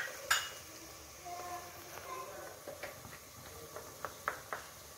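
A small steel bowl knocking against a frying pan as the last of the sliced onions is tipped in: one sharp knock about a third of a second in, then a run of light taps near the end.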